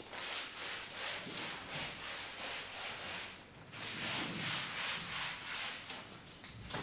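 A cloth wiped back and forth over shiny red cinema seat backs, in quick rhythmic rubbing strokes of about three a second, with a short pause about halfway through.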